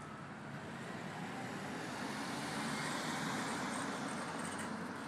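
Road traffic: a passing vehicle's tyre and engine noise swells to a peak about three seconds in and then fades.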